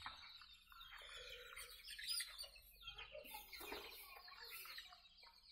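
A brood of young Sonali-breed chicks cheeping: many short, high chirps overlapping, with one louder call about two seconds in.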